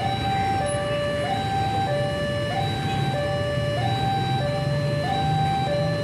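Railway level-crossing warning alarm sounding, an electronic two-tone signal alternating steadily between a low and a high tone about every 0.6 s. It signals that a train is approaching and the barrier is closing.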